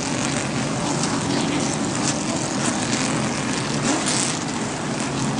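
NASCAR stock car engines running on the track, heard as a steady trackside drone from the broadcast.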